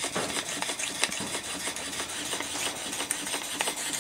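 Twin-cylinder, single-acting, rotary-valve model steam engine running under steam, with light repeated ticks over a steady hiss.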